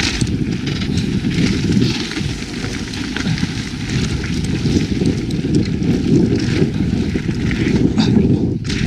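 Mountain bike, an Evil Calling, ridden down a rough dirt trail: a loud, steady rumble of wind on the microphone and tyres on the ground, with frequent clicks and rattles from the bike over roots and rocks. The noise drops briefly near the end.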